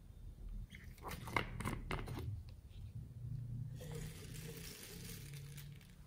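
Plastic cap of a small bottle opened with a quick run of crackling clicks, then small foam beads poured out onto slime as a soft, steady hiss lasting about two seconds.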